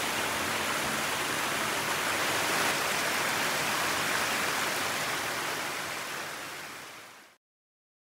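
A small waterfall and mountain creek rushing and splashing over rocks, a steady sound of running water that fades out to silence about seven seconds in.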